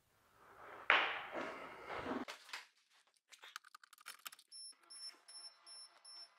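Microfiber cloth rubbing over car paint, wiping off cutting compound: a rustling swipe starting about a second in and lasting about a second. Then faint clicks and handling noises, with a faint high beep repeating about three times a second near the end.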